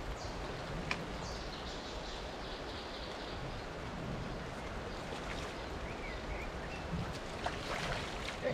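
Steady hiss of rain on a river, with a few small splashes from a hooked fish thrashing at the surface near the landing net, near one second in and again toward the end.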